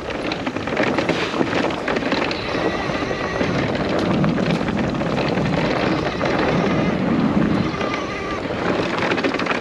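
Fat-tyred electric mountain bike ridden over a dirt trail: tyres crunching and rattling over the ground, with many small knocks and wind buffeting the microphone.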